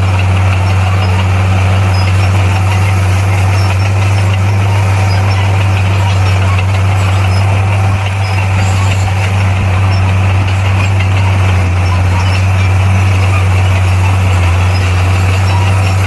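Bulldozer's diesel engine running steadily at a constant pitch, with a brief slight dip about halfway through.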